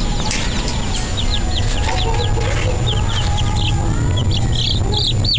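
A crowd of baby chicks peeping: many short, high calls from about a second in, coming thicker and louder near the end, over a steady low hum.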